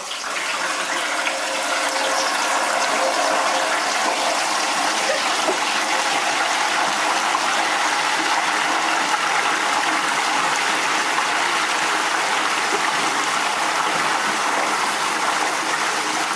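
Hot oil in a Masterbuilt indoor turkey fryer sizzling and bubbling hard as a whole turkey is lowered into it. The hiss builds over the first couple of seconds, then holds steady and loud.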